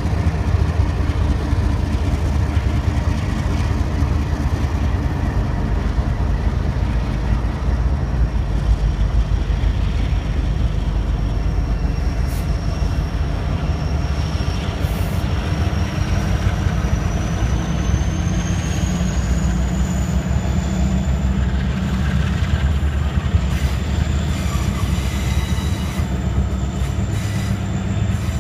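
A freight train led by diesel locomotives passes with a steady low rumble. A thin, high wheel squeal runs over it and rises in pitch a little past the middle.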